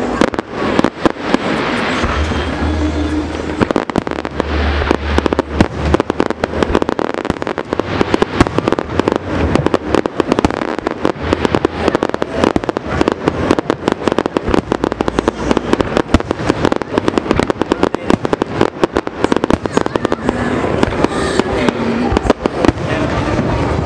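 Aerial fireworks going off in a dense, fast run of crackling pops and sharp bangs, many per second.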